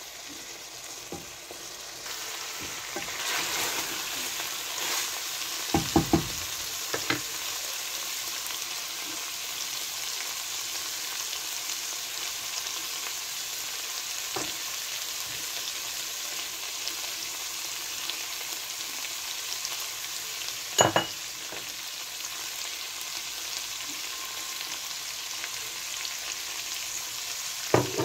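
Mutton liver masala sizzling in a steel pot, the hiss growing louder about two to three seconds in. A wooden spatula stirs it, with a few sharp knocks against the pot, loudest about six seconds in and again about twenty-one seconds in.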